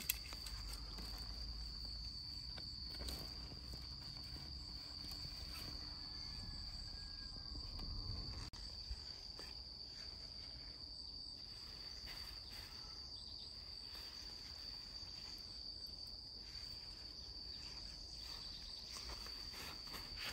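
Insects singing in the grass, a steady high-pitched chorus that never stops, with a low rumble for the first several seconds and a few faint knocks.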